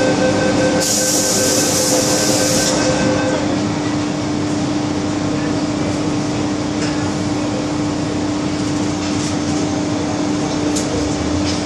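Inside an MTR M-Train carriage, a steady warning tone sounds as the doors close, with a burst of hiss about a second in. The train then starts pulling out of the station, running with a steady hum and rumble.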